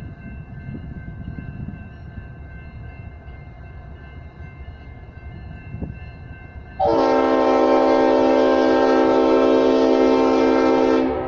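Leslie RS5T five-chime locomotive air horn sounding one long blast. The blast starts suddenly about two-thirds of the way in, holds steady for about four seconds and cuts off near the end, over the low rumble of the approaching diesel locomotive.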